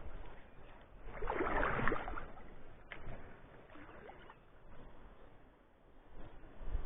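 River water sloshing and splashing as someone wades through it, loudest for about a second starting a second in, then quieter.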